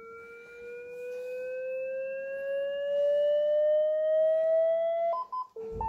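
LifePak 20 defibrillator's charging tone: one steady tone rising slowly in pitch for about five seconds while it charges to 250 joules. Near the end it breaks into a repeating two-note beeping, the alert that the charge is complete and the shock is ready to deliver.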